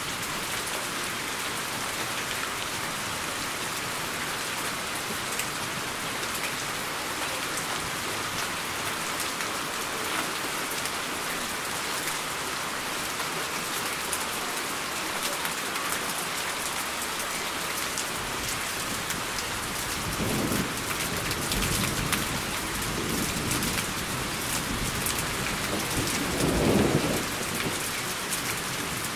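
Steady rain falling, with thunder rumbling in about two-thirds of the way through, rolling in several swells and loudest near the end.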